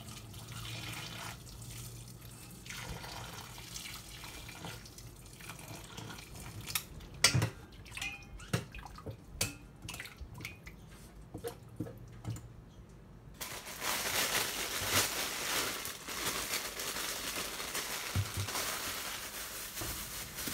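Hot water poured from a pot over chicken bones in a stainless steel bowl. From about six seconds in, metal tongs click and scrape sharply against the bowl as the bones are rinsed. Over the last several seconds there is louder, steady running water.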